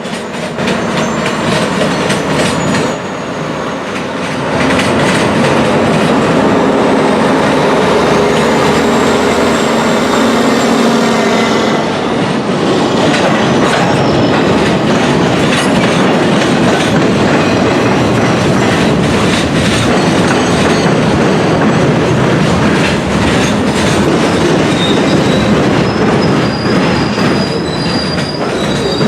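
A short maintenance-of-way train, pulled by a CSX truck, rolling across a railroad diamond crossing. The wheels clack over the crossing joints, with high wheel squeals at times.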